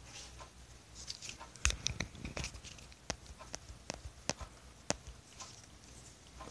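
Light, irregular taps and clicks, about a dozen sharp ones spread over three seconds or so, as small things are handled and moved on a wooden surface.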